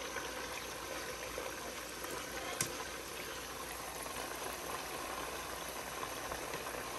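Chicken frying in hot oil: a steady sizzle, with one short pop about two and a half seconds in.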